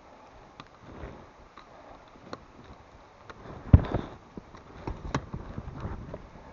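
Scattered small clicks and knocks of equipment being handled, with one louder thump a little past halfway.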